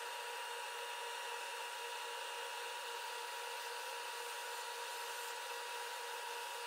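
Wood lathe running with its workpiece spinning: a steady motor whir with a constant whine, unchanging throughout.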